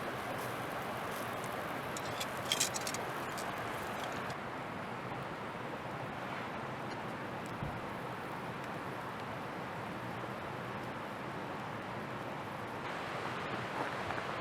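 Steak grilling over a wood campfire: a steady sizzling hiss, with a short cluster of sharp crackles about two and a half seconds in.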